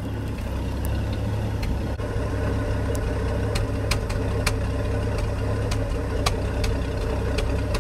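Ford 300 (4.9 L) straight-six in a 1974 F-250 idling through its exhaust, heard at the tailpipe: a steady low rumble with sharp ticks scattered irregularly through it. The engine is freshly running on a newly fitted carburetor, not yet warmed up, with the idle set a little low.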